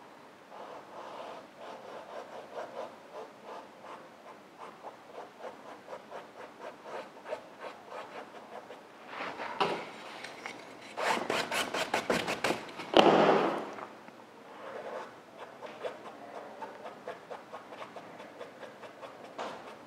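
Paintbrush working acrylic paint on a stretched canvas: a run of soft, short scratchy strokes, with a louder stretch of rapid strokes about eleven to fourteen seconds in.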